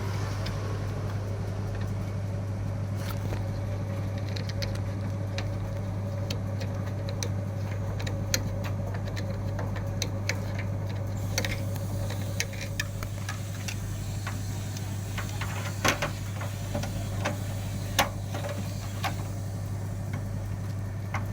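Steady low electrical hum, with scattered light clicks and taps. A fainter, higher steady whine fades out about twelve seconds in.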